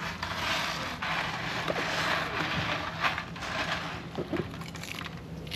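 Fillet knife scraping and crunching through the scaly head of a large grouper as the cheek is cut out, in several rasping strokes over about three seconds before it eases off.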